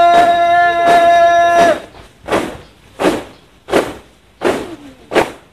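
A marching squad's boots stamping the pavement in unison, one sharp step roughly every 0.7 seconds. A long held note at a steady pitch stops about a second and a half in.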